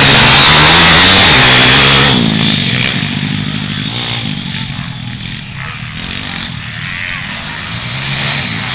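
Pit bike engines racing on a dirt track. One bike revs loudly close by through a corner for about the first two seconds, then the engines fade as the bikes ride away, still rising and falling in pitch.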